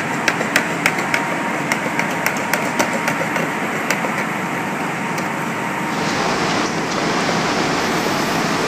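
Hand-held can opener clicking as its key is turned round the can's rim, about three clicks a second for the first three seconds, over a steady background hiss. The hiss grows louder and fuller about six seconds in.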